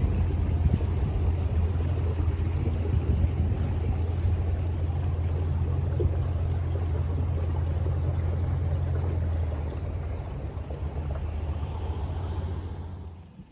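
A dinghy's outboard motor running steadily under way, with water rushing past the hull. It eases off about ten seconds in and dies away near the end.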